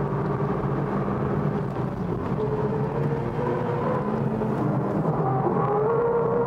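Mitsubishi Lancer Evolution V RS's turbocharged four-cylinder engine heard from inside the cabin at racing speed, with road and wind noise. The note holds fairly steady at first, then climbs in revs over the last two seconds or so.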